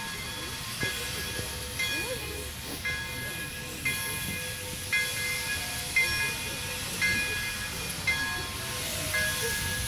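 Steam locomotive bell of the Pere Marquette 1225 ringing steadily, about one stroke a second, each stroke ringing on into the next, over a steady hiss of steam. It is the warning that the train is about to move off.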